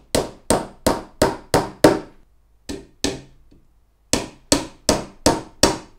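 Hammer driving 1.5-inch nails into the corner joints of a cedar beehive roof frame. There are two runs of about six blows each, about three a second, separated by a short pause with a couple of lighter taps as a new nail is set.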